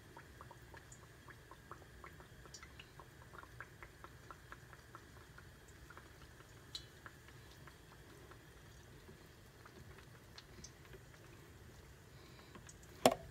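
Hot oil in a cast-iron skillet crackling faintly around a frying crescent-dough pie, with scattered small pops. A single sharp knock near the end.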